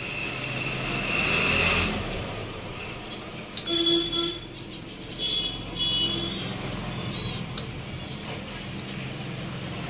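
Road traffic going by, with a vehicle horn tooting twice in short blasts near the middle.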